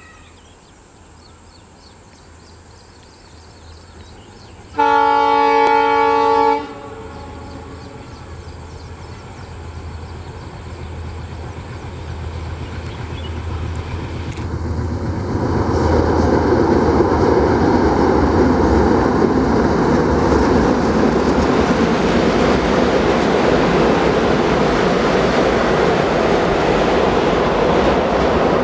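WDG3A diesel locomotive approaching with its engine drone building, sounding its horn once for about two seconds, about five seconds in. From about halfway, the locomotive and double-decker coaches crossing the steel girder viaduct give a loud, steady rumble and clatter of wheels.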